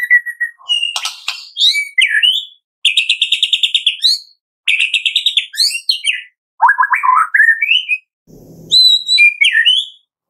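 White-rumped shama singing a string of varied, loud phrases: clear whistles, fast rattling trills of repeated notes, and rising and falling slurs, with short pauses between phrases.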